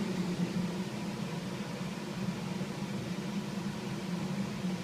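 Kitchen range-hood exhaust fan running with a steady hum and whir, drawing off smoke from fat burning off a roast.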